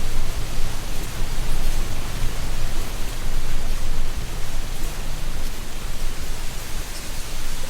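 Steady wind blowing through tree canopies and rustling dry leaves: an even, unbroken rushing noise with a deep low rumble and no tones.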